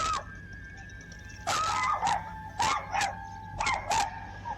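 A dog barking repeatedly at a bear to drive it off, a quick run of about six barks starting about a second and a half in.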